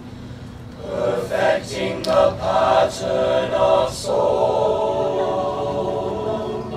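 Mixed-voice high school choir singing: a few quick sung words with crisp 's' sounds, then, about four seconds in, a held chord that slowly fades.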